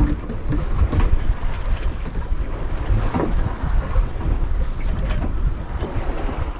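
Wind buffeting the microphone aboard a small sailboat under sail, with the rush of waves and choppy sea against the hull. There are a few sharp knocks among the steady rumble.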